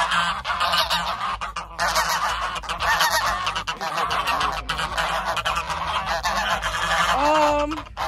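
A flock of white domestic geese honking, many calls overlapping with hardly a break.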